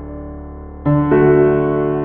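Background music on piano or keyboard: sustained chords, with new chords struck just under a second in and again shortly after.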